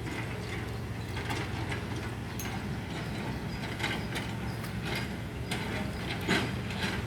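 Steady low mechanical rumble with irregular clicks and rattles over it, the loudest click about six seconds in.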